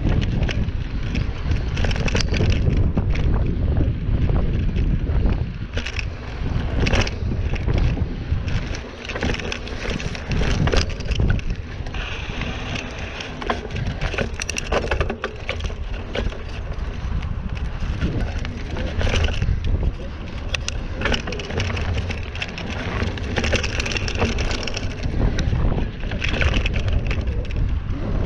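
Mountain bike being ridden over a dirt trail: steady tyre and wind rumble on the microphone, broken by frequent short rattles and crunches as the bike rolls over rough ground and debris.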